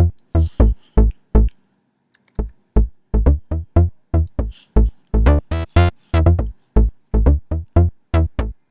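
Plucked synth bass patch in Xfer Serum playing a staccato riff of deep, quickly decaying notes. There is a brief pause about two seconds in, and a couple of brighter, buzzier notes a little past the middle.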